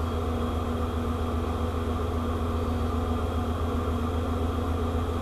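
Steady low hum of a ship's running machinery, with a constant tone above the drone and no change in speed or pitch.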